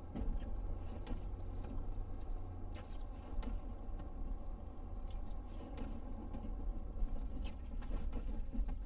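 Cab of a Ford F-250 plow truck: a steady low rumble of the running truck, with scattered light ticks and small rattles over it.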